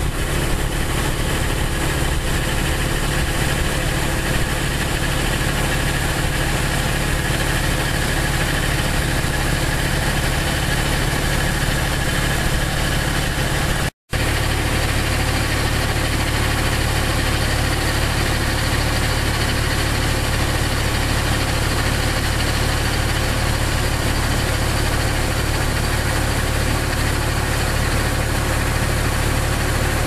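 Engine running steadily with a low hum, under a continuous hiss of water spray and wind. The sound cuts out for a split second about halfway through.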